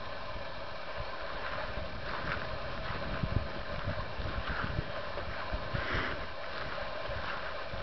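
Wind buffeting the microphone: a steady hiss with irregular low rumbling gusts, and a few faint short high sounds over it.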